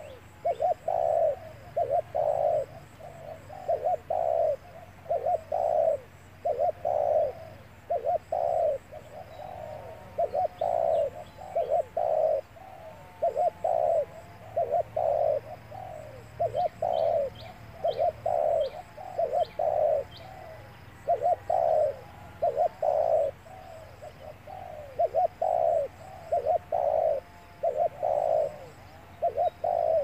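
Spotted dove cooing over and over in quick runs of two or three low notes, about one run a second: the rapid 'thúc' calling that trappers use to draw wild doves in. Faint high chirps of small birds sit behind it.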